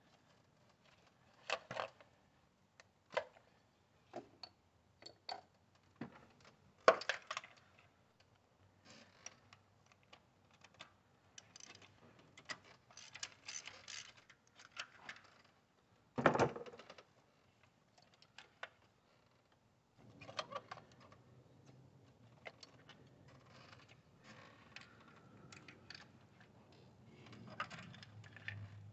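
Scattered clicks, clinks and knocks of hand work on an engine's ignition coils and their plastic connectors as they are unclipped, pulled and set aside, with a few louder knocks about 7 and 16 seconds in. A faint low hum comes in about two-thirds of the way through.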